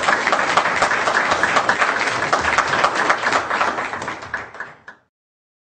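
Audience applauding, a dense run of many hands clapping that thins out near the end before the sound cuts off abruptly to silence.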